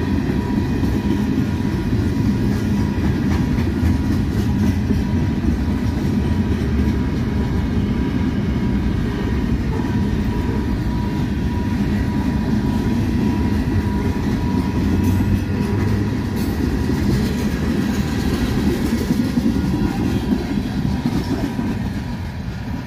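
Freight train's covered hopper cars rolling past: a steady, loud rumble of steel wheels on rail with clickety-clack over the rail joints.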